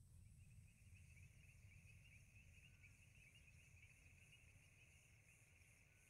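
Very faint dusk ambience from a film soundtrack played over a video call: steady high chirping of insects over a low rumble, the chirping starting about a third of a second in.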